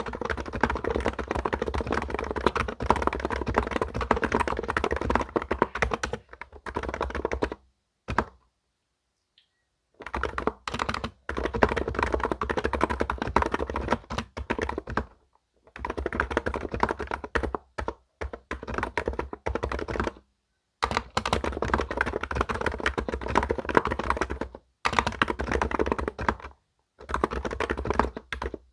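Keystrokes on a computer keyboard in a typing sound test: dense runs of fast clacking key presses, broken by a few short pauses.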